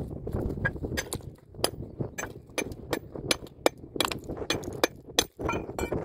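Loose limestone rocks being shifted and pried at: irregular sharp clicks and knocks of stone striking stone, about two to three a second, over a low rumble.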